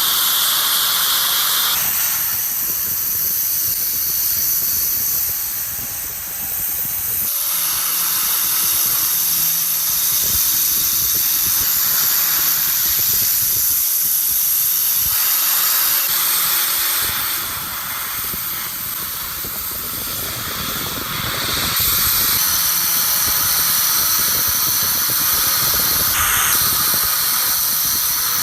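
Continuous hissing from rust-removal or polishing work on the metal of a manual meat grinder, its texture shifting every few seconds and easing off briefly a few times.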